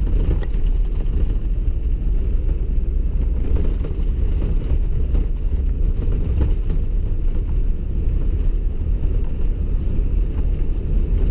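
Steady low rumble of a vehicle driving slowly on packed, refrozen snow, heard from inside the cab: tyre and road noise over the engine.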